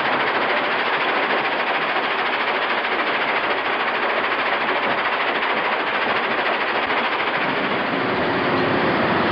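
Stone crusher running, with a steady loud clatter of rock being broken and rattled through the machinery.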